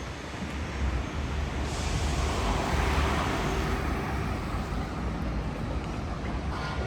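Road traffic with a steady low rumble; one vehicle passes, swelling up about two seconds in and fading away by about four seconds.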